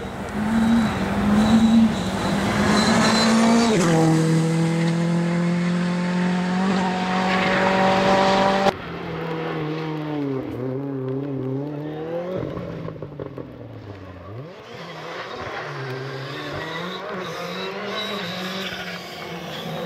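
A rally car's engine at full throttle, its pitch dropping sharply at a gearshift about four seconds in and then holding steady, until the sound cuts off suddenly about halfway through. After the cut a second rally car's engine, quieter, is revved up and down, its pitch dipping and rising several times.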